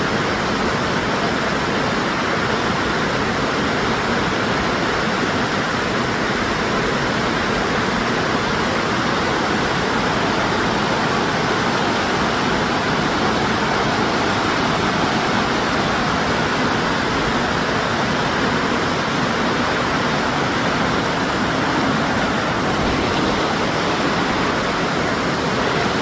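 Rushing water of river rapids, a steady, unbroken rush.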